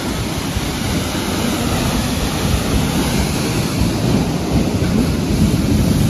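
Steady, loud rush of a tall waterfall, about 50–60 feet high, plunging into its pool, heavy in the low end.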